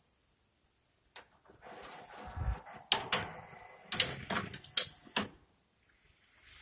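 VHS cassette mechanism of a TV/VCR combination ejecting a tape: a short motor whir with a low thump, then a series of mechanical clicks and clunks as the tape is unloaded and pushed out.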